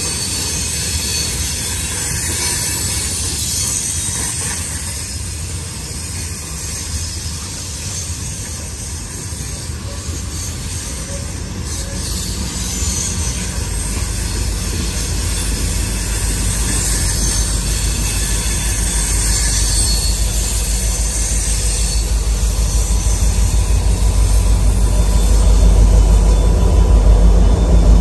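Diesel-hauled train approaching on the curve, its low rumble building steadily louder over the second half.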